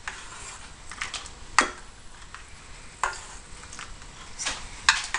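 Wooden spoon scooping cornmeal porridge from a stainless steel saucepan into a bowl: about five short scrapes and knocks of the spoon against pan and bowl, the sharpest a little under two seconds in.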